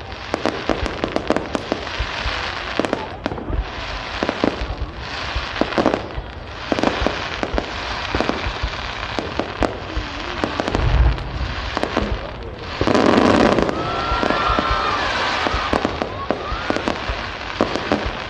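Aerial fireworks display: a dense run of sharp bangs and crackling, with a deep boom about eleven seconds in and a louder burst soon after.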